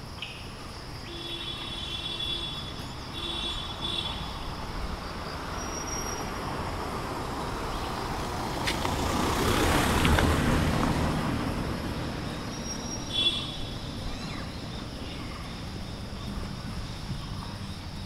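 A motor vehicle passes on the road, its engine and tyre noise swelling to a peak about ten seconds in and then fading away.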